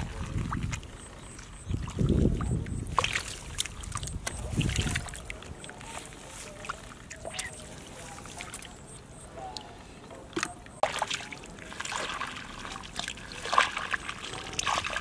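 Hands plunging and groping through shallow muddy water and mud while hand-fishing for catfish: sloshing and splashing with sharp little splatters and squelches. The heaviest sloshes come at the start, about two seconds in and near five seconds.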